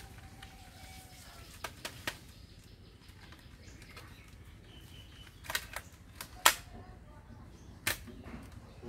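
Sharp, separate plastic clicks and snaps from a toy gun being worked in the hands, about six spread over several seconds, the loudest about six and a half seconds in.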